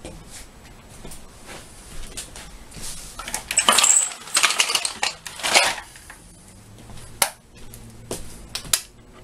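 Clicking and light clinking of small hard objects being handled, busiest from about three to six seconds in, then a single sharp click about seven seconds in and another near the end.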